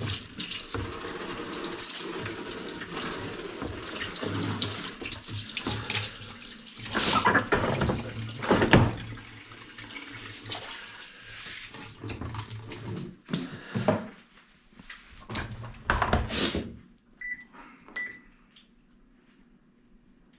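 Water running and splashing unevenly, with several louder gushes, then cutting off about three-quarters of the way through. Two short high beeps follow.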